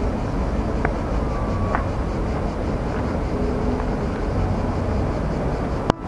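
Town noise heard from high above: a steady rumble of traffic, with a couple of faint ticks and a brief thin tone about a second in. It cuts off just before the end.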